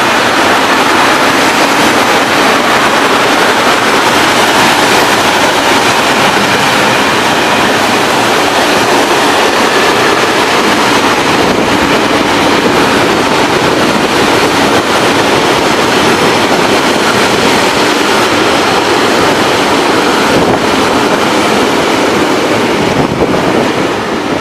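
Freight train of flat wagons loaded with steel wire coils passing close at speed: a loud, steady rumble and rattle of wheels on the rails.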